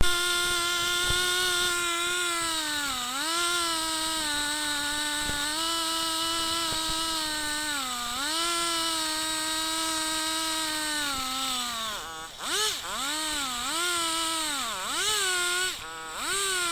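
Two-stroke chainsaw in an Alaskan-style chainsaw mill, running at high revs. Its pitch sags and recovers twice, then dips several times in quick succession near the end.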